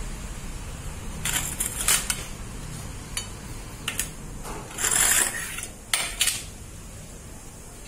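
Stainless steel steamer plates clinking against each other as a stacked steamer stand is taken apart and a plate is lifted out. There are several sharp metallic clinks and a longer, louder clattering rattle about five seconds in.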